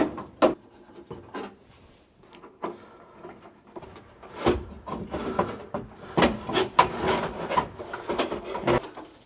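Parts being handled: irregular clicks, knocks and rubbing of hard pieces, sparse at first and coming thicker about halfway through.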